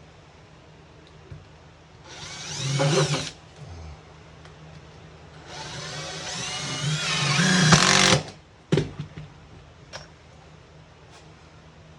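Power drill driving #8 x 1.75" GRK screws into plywood sheathing: two runs with a rising whine, the second one longer and getting louder as the screw goes in. A sharp knock follows shortly after.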